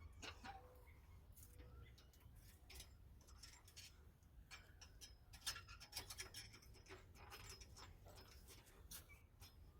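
Faint, irregular clicks and light taps, scattered with no steady rhythm, over a low steady hum: quiet work noises.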